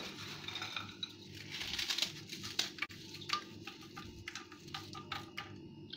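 Crisp plain biscuits being snapped into pieces by hand and dropped onto a soft custard layer: a run of small, irregular cracks and taps.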